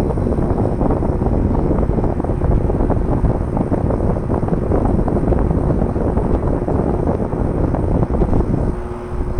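TKA-W1600 window-type air conditioner running: a steady, loud low rushing of fan and compressor noise with a faint steady hum tone in it, dipping briefly near the end. The owner finds it far too loud.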